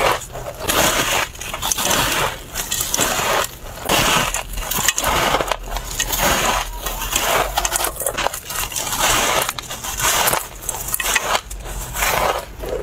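Close-up crunching of a person biting and chewing packed shaved ice: a run of crisp, grainy crunches about once a second.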